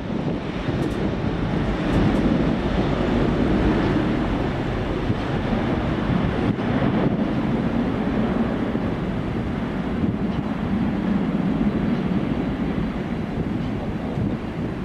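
Steady roar of jet airliner engines, a dense low rushing noise that swells slightly about two seconds in and then holds.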